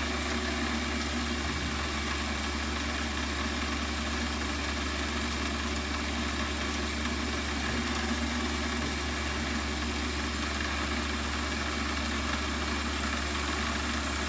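Warco WM180 lathe running steadily, its spindle turning a centre drill that spots the middle hole in an aluminium block: a constant mechanical hum with no change in speed.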